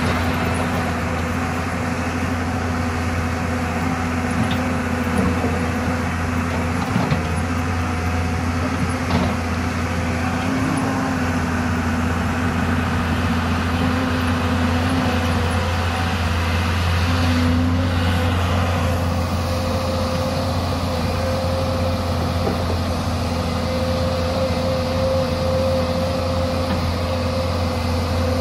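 Hyundai crawler excavator's diesel engine running steadily while it digs, with a couple of brief knocks about seven and nine seconds in.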